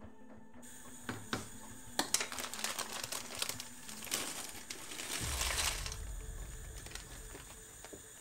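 A plastic food bag crinkling as it is handled and opened, with a few sharp knocks of a wooden spoon on a steel pot about a second in. Near the end the bag is tipped out over the pot.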